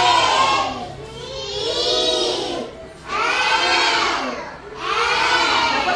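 A class of young children chanting in unison as the teacher points at letters on a chart: four long, drawn-out chanted calls, each about a second, with short pauses between.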